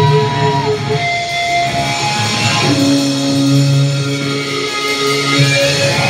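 Live heavy metal band's amplified electric guitars holding long sustained notes. A high note stops under a second in, and a lower note comes in about two and a half seconds in and rings on.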